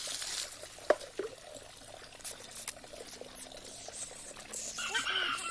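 Water pouring and splashing, with a few clicks, and a short high-pitched call near the end.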